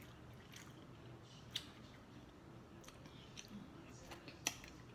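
A person chewing food with the mouth close to the microphone: soft wet mouth clicks and smacks at irregular intervals, the sharpest about four and a half seconds in.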